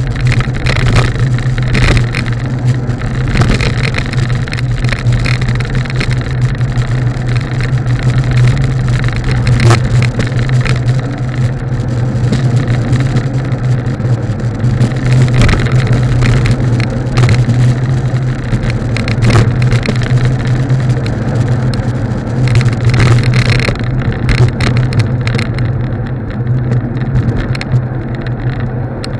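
Wind buffeting a bicycle-mounted action camera's microphone at riding speed, a steady low rumble and hiss with scattered knocks from bumps in the road. The hiss thins out near the end as the bike slows.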